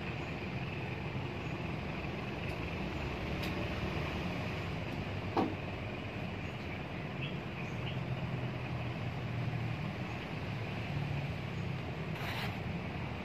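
A motor runs steadily with a low hum. A brief squeak comes about five seconds in, and a short rustle near the end.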